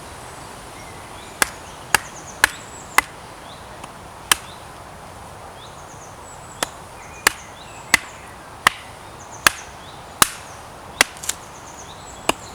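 Small axe splitting hazel sticks: about fourteen sharp chopping strikes, in two runs separated by a pause of about two seconds.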